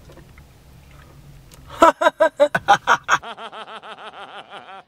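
Low car-cabin hum, then about two seconds in a cartoon character's voice from an animated film clip, pulsing rapidly in quick even beats, about seven a second, before cutting off abruptly.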